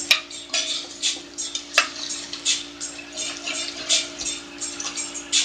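Irregular light clicks and ticks over a steady low hum, like small kitchen clatter.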